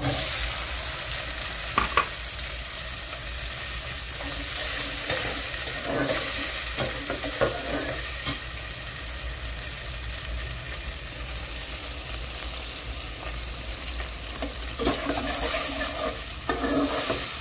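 Green peas sizzling as they fry in hot ghee and oil in an aluminium pot, the sizzle starting suddenly as they are tipped in. A metal spatula stirs and scrapes against the pot, most busily near the end.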